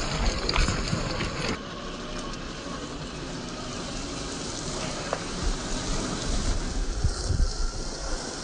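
Traxxas TRX-4 Defender 1/10-scale RC crawler driving over loose pebbles and gravel: stones crunching and rattling under its tyres. The sound drops quieter about a second and a half in.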